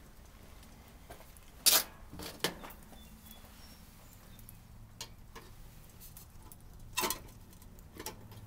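A few scattered sharp clicks and cracks at small wood-burning backpacking stoves burning twig fuel under pots, the loudest about two seconds in and others about seven and eight seconds in.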